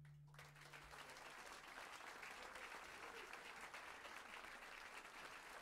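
Faint applause from an audience, a steady crackle of many hands clapping, starting just as a piece of closing music fades out.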